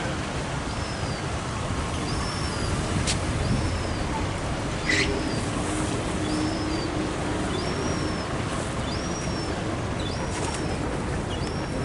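A small bird repeating a short, high call about once a second over a steady background hiss, with a couple of brief clicks.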